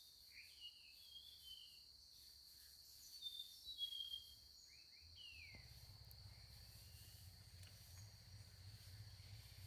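Faint forest ambience: a steady high insect drone with birds chirping in short, sliding calls through the first half. A low rumble comes in about five seconds in.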